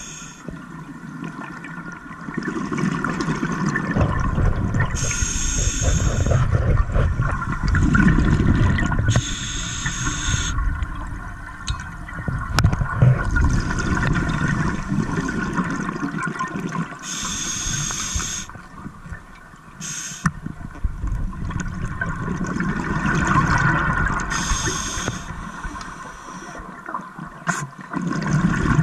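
Scuba diver breathing through a regulator underwater: a short hiss with each inhalation every several seconds, followed by a long low rumble of exhaled bubbles.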